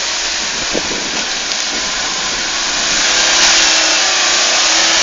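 Land Rover Defender's engine working under load as it crawls through deep mud ruts, with a steady hiss over it; it grows louder about three seconds in.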